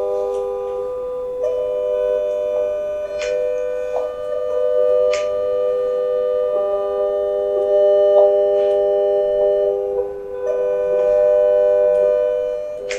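Steady sine tones from many mobile phone speakers holding a major triad of 400, 500 and 600 Hz, with fainter overtones above. Single tones drop out and come back in now and then, and there are a few short clicks.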